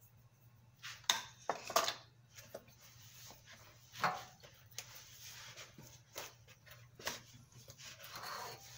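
Hands mixing and kneading soft flour dough in a plastic bowl: irregular knocks and slaps of hand and dough against the bowl, with soft rubbing and rustling between them.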